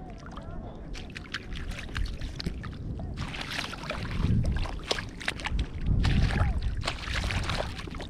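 Small waves lapping and sloshing at a river beach shore, with gusts of wind buffeting the microphone about four seconds in and again around six seconds.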